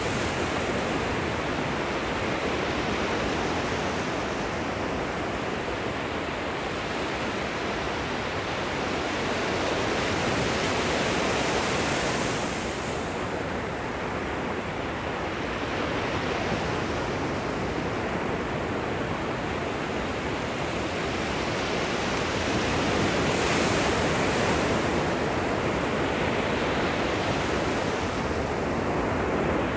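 Gentle surf washing up on a beach: a steady hiss of small waves breaking and running up the sand, swelling a little every several seconds.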